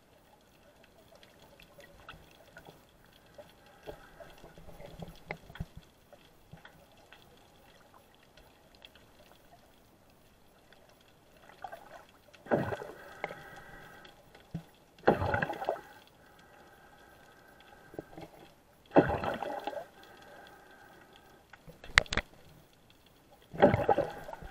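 Muffled underwater water noise picked up by a submerged action camera: a faint hiss with scattered small ticks, then from about twelve seconds in four loud whooshing surges of water about a second long each, and a single sharp knock shortly before the last one.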